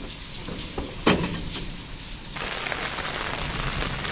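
A metal door bolt being worked, with a sharp clack about a second in, over steady rain. About two and a half seconds in, the rain turns fuller and louder: heavy rain falling on a wet concrete path.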